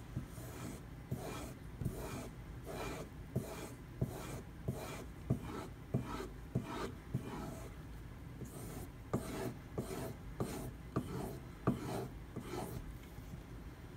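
Bark River Bravo EDC's convex bevel stroked repeatedly across a leather strop loaded with white compound, a steady run of short rubbing strokes about one and a half a second, each with a light tick. Stropping the main bevel to blend in sandpaper scratches.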